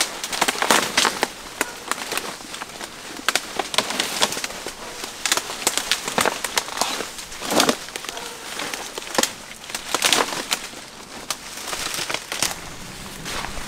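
Leaves, grass and twigs rustling and snapping as people push through dense undergrowth on foot, an irregular run of crackles and swishes.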